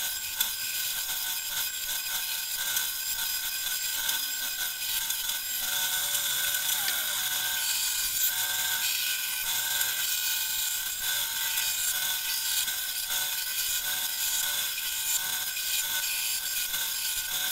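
Small benchtop bandsaw running, its blade cutting around a teak wheel blank: a steady whine over the hiss of the cut.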